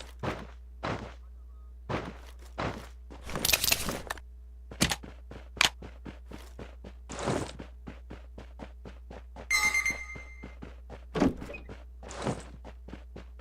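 A string of irregular thunks and clicks, with a brief high squeak about ten seconds in, over a low steady hum.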